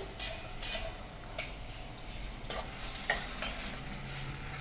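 Chopped tomatoes sizzling as they sauté in oil in a metal kadhai, stirred with a spoon that scrapes and taps against the pan about once a second.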